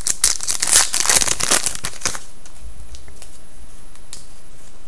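Hockey card pack wrapper being torn open and crinkled, a dense crackling that stops about two seconds in.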